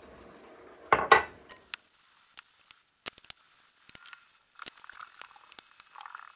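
Hands squeezing and pressing crumbly pastry dough together in a glass bowl: a loud short squish about a second in, then scattered small clicks and soft squishing as the dough is gathered into a ball.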